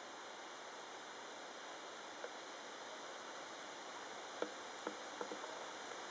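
Steady background hiss with a few short soft ticks, most of them in the second half.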